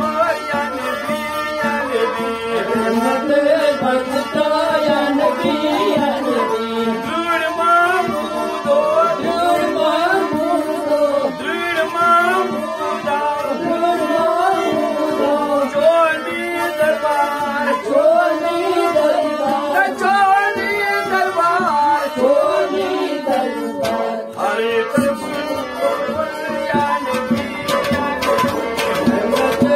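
Kashmiri Sufiyana music played live: harmonium and bowed sarangi carrying a wavering melody over hand strokes on a tumbaknari clay pot drum, the drumming growing busier near the end.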